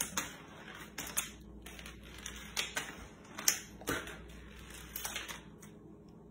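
A wand cat toy's lure flicked across a tile floor: irregular sharp taps and brief swishes, loudest about three and a half seconds in.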